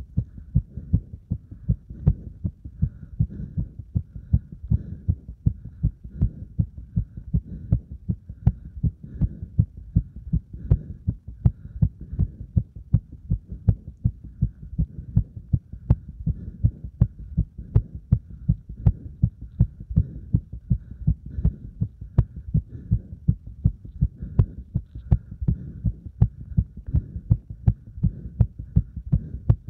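A human heartbeat, close-recorded, beating fast and regularly in repeated low lub-dub thumps. The heart is still racing after hard exercise (burpees followed by deep squats).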